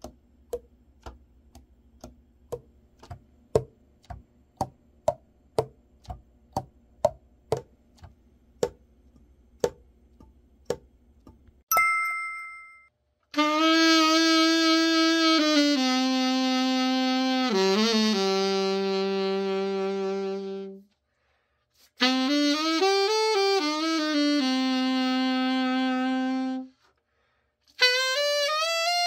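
The pads of a Yamaha YAS-62 alto saxophone are pressed shut on their tone holes by finger, giving about two sharp 'tong' pops a second; the pop is the sign of a pad sealing well in a leak test. A short two-tone chime sounds near the middle, then the alto is played: long held notes with a few slides, broken by short pauses.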